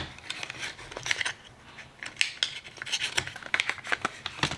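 A mascara tube and its cardboard box being handled: irregular small clicks and taps of plastic and card, scattered throughout.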